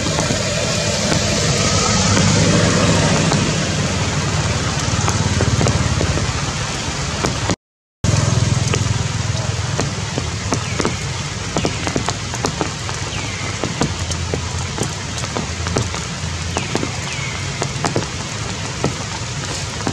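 Heavy rain falling on tree foliage: a steady hiss with many sharp drop ticks. A louder low rumble lies under it for the first seven seconds or so and stops at a brief cut in the sound.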